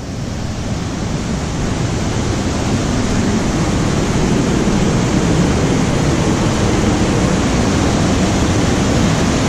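Waterfall and rapids on the Lady Evelyn River, white water rushing steadily. It grows louder over the first few seconds as the microphone comes up to the falls, then holds.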